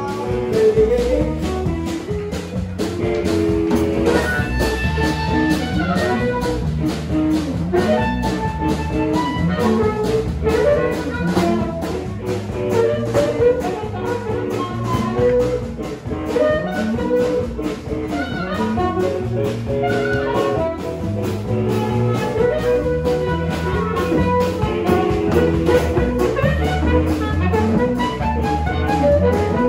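A blues band playing live: harmonica played through a handheld microphone takes the lead over electric guitar and a drum kit keeping a steady beat.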